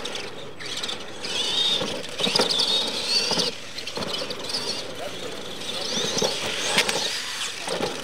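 Electric motors of two radio-controlled monster trucks whining, the pitch rising and falling as they speed up and slow down, with a few sharp knocks.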